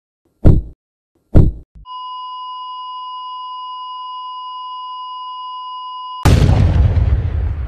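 Heart-monitor sound effect: two heartbeat thumps about a second apart, then a steady high flatline beep held for about four seconds. The beep is cut off near the end by a sudden loud crashing blast that fades out.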